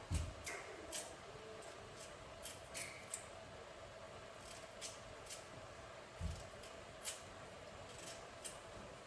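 Kitchen knife slicing vegetables on a cutting board: faint, sharp, irregular clicks of the blade going through and striking the board, about fifteen cuts with uneven pauses between them.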